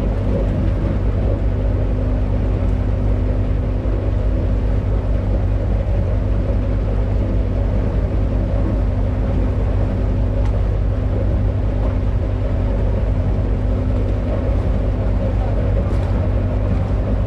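Venetian vaporetto water bus's engine running steadily: a constant deep drone with a held humming tone, no change in speed.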